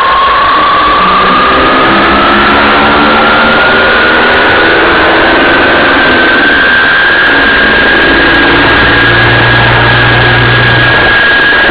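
Engine and drivetrain of the moving vehicle carrying the camera, with a whine that rises steadily in pitch as it gathers speed, over loud steady road noise.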